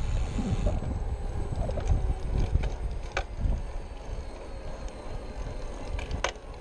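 Wind buffeting the microphone of a bicycle riding uphill, with a faint steady hum from the SK3 5065 motor's friction drive. There is a sharp click about three seconds in and two more near the end.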